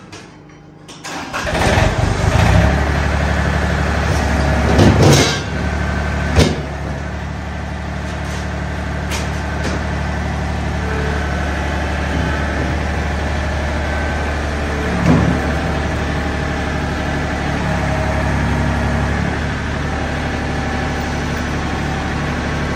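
A John Deere compact tractor's engine cranks and starts about a second in, then runs steadily while its front loader lifts and drags a chained brush hog. A few sharp metal knocks come through, the loudest around five and six seconds in.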